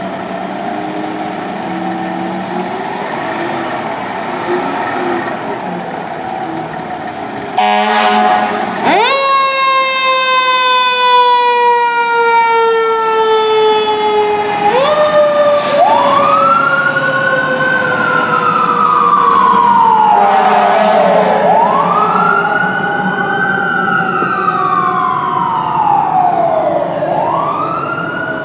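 A fire engine idling, then a brief horn blast about seven and a half seconds in. Its siren then winds up, slowly falls, winds up again, and settles into a wail that rises and falls about every five seconds as the engine responds.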